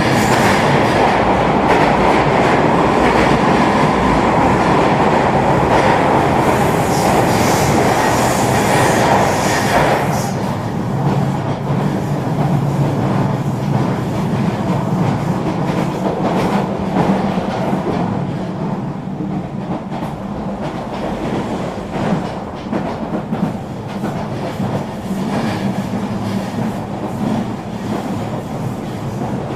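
Eurobahn regional train running along the line: steady rolling rumble and hum with a run of wheel clicks over the rail joints. It is louder and brighter for about the first ten seconds, then settles quieter.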